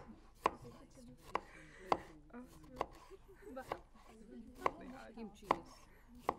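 Kitchen knife cutting food on a cutting board: about eight sharp knocks of the blade against the board, unevenly spaced, roughly one every half second to a second.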